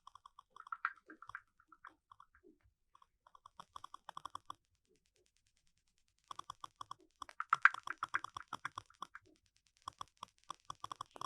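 Key-press clicks of a smartphone's on-screen keyboard as a message is typed, in quick irregular runs with short pauses between them.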